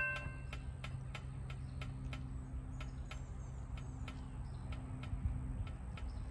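Railroad grade-crossing signal: its bell's ringing cuts off within the first half second, then a rapid, even ticking goes on at about three clicks a second, over a faint low hum.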